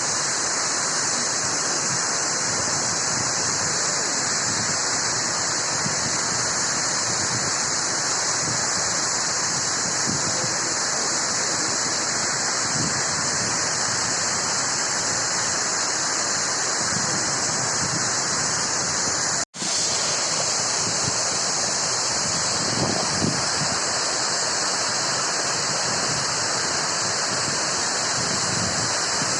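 Two-tiered Uchan-Su waterfall: a steady rush of falling water. The sound cuts out for an instant about two-thirds of the way through.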